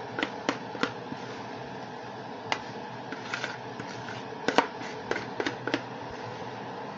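A spoon knocking and scraping against a mixing bowl as the last of the cake batter is worked out into a tube pan: scattered sharp clicks, with several in quick succession about four and a half seconds in, over a steady background hum.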